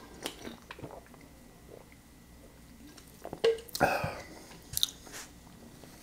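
Quiet mouth and swallowing sounds of a man drinking from an aluminium soda can, then a cluster of louder short knocks and clicks about three and a half to four seconds in as the can is set down on the table, and a couple of small clicks after.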